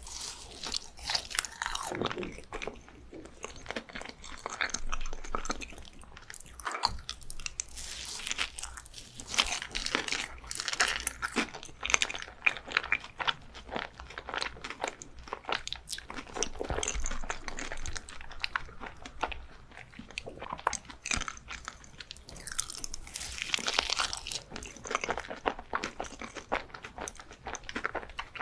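Close-miked eating of crunchy sweets: crisp crunching bites and chewing, one crackle after another throughout.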